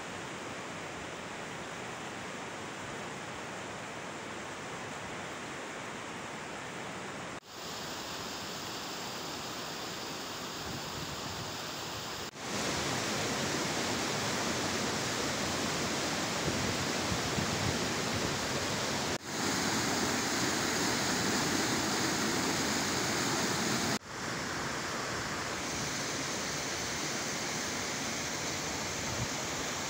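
Steady rush of water falling from a tall mountain waterfall onto boulders, in several clips cut together. It gets louder from about twelve seconds in, when it is heard close to the foot of the falls.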